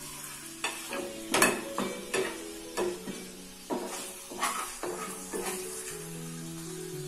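Chicken pieces sizzling in butter in a frying pan, with about a dozen scrapes and knocks of a utensil against the pan, the loudest about a second and a half in.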